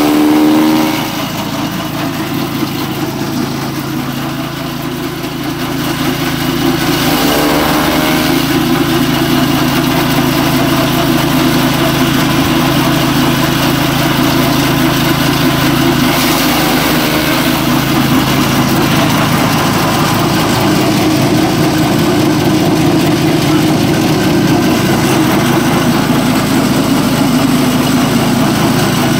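Engine running steadily at idle, driving a chaff cutter. It is a little quieter for the first few seconds, then steady and louder.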